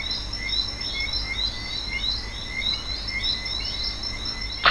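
Nature ambience of short, high chirping calls repeating two or three times a second over a steady low rumble. Right at the end comes a loud, sudden sweep falling in pitch.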